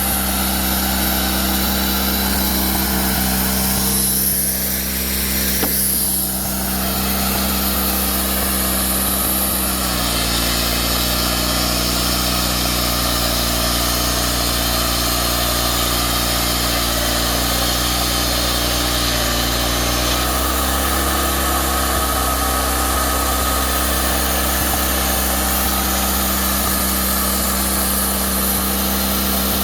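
Woodmizer LT40 portable sawmill running steadily. Its note changes about ten seconds in and changes back around twenty seconds in.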